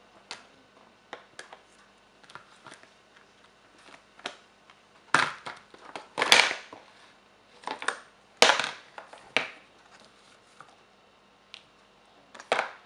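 Wax crayons rattling inside a clear plastic tub and clattering out onto a wooden tabletop as the tub is handled and tipped up. Light scattered clicks give way to several loud bursts of clatter around the middle, with another near the end.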